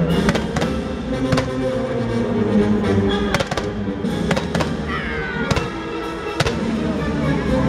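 Fireworks going off in rapid, irregular succession, a dozen or so sharp bangs with crackle, over loud music.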